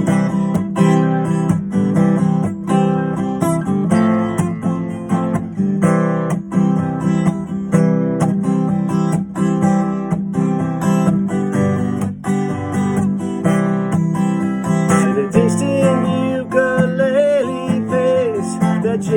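Acoustic guitar strummed in a steady rhythm, about two strums a second, playing an instrumental break.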